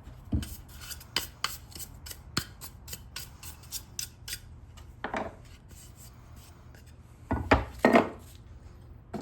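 Sandpaper being rubbed by hand on the wooden handle of a jewelry box lid, in short quick strokes at about three a second. In the second half come a few duller knocks and scrapes, the loudest two about three-quarters of the way through.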